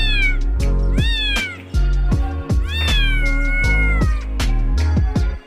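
Kitten meowing three times, each call rising and then falling in pitch, the third long and drawn out, over background music.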